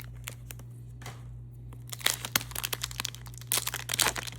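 Plastic blister packaging and a foil trading-card booster wrapper being torn open, with sharp crinkling and crackling starting about two seconds in, over a steady low hum.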